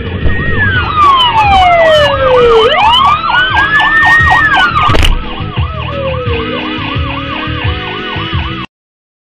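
Emergency vehicle sirens: a fast warble repeating about four times a second sounds together with a slower wail that sweeps down and back up. A sharp knock comes about five seconds in, and the sound cuts off abruptly near the end.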